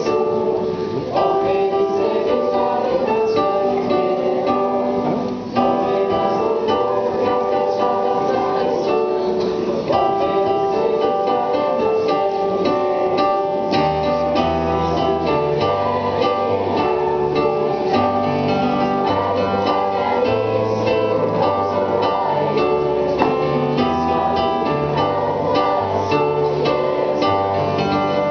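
Electronic keyboard playing: notes with sharp attacks over held chords, with a low bass line coming in about halfway through.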